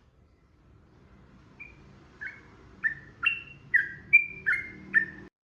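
Sooty-headed bulbul singing: a run of about eight short, clear whistled notes that grow louder, over a faint low background hum, then cut off suddenly.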